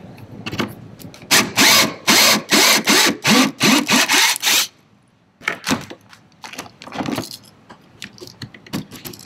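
Cordless drill with a step bit boring a hole about an inch wide through a plastic kayak pod, driven in a string of short trigger bursts for about three seconds before it stops. Scattered light clicks and rattles follow.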